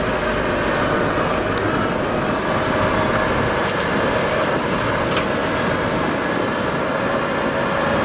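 Car driving: steady engine and road noise.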